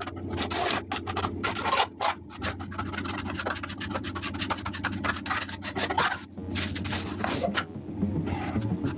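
Repeated, irregular scraping and rubbing on a hard surface.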